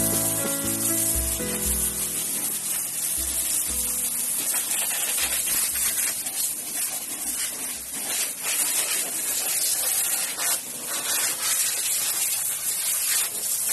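Hand-held spray nozzle on a hose hissing steadily as it sprays diesel onto a scooter's rear and underside. Background music fades out in the first couple of seconds.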